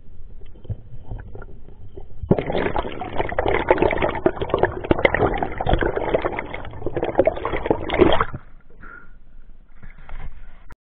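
Water splashing and bubbling close to an underwater camera, a dense crackling rush that starts suddenly a couple of seconds in and stops abruptly about eight seconds in, with softer water rumble around it.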